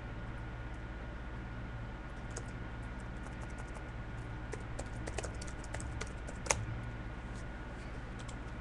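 A run of light, irregular clicks over a steady low hum, thickest in the middle, with one sharper click about six and a half seconds in.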